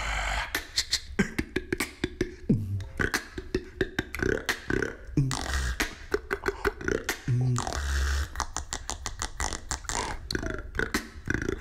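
Beatboxing done without lips, the lips held back by a cheek retractor: a slow beat of deep bass kicks every couple of seconds, rapid sharp clicks and hissy snare-like textures.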